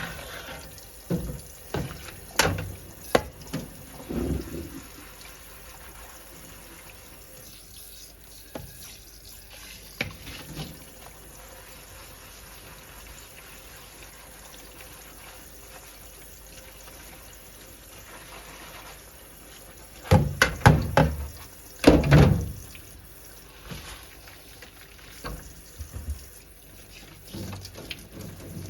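Water running steadily, with scattered knocks and clatters, the loudest ones bunched about twenty seconds in.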